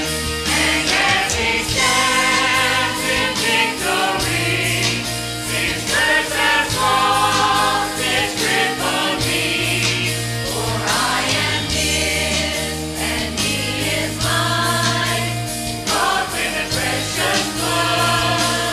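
Mixed church choir of men and women singing together in parts, with long held low notes underneath.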